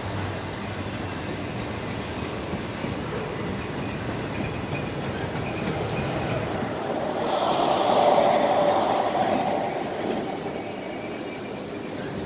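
Freight train of autorack cars rolling past: a steady rolling noise of wheels on rails, with a higher-pitched tone swelling up for a few seconds past the middle and then easing off.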